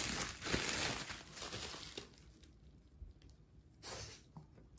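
Plastic bubble wrap crinkling and rustling as it is pulled off a cardboard box, loudest for the first two seconds, with one more short rustle near the end.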